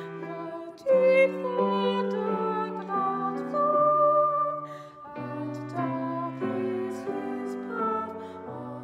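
A slow hymn sung by two women's voices with keyboard accompaniment, the notes held and changing about once a second.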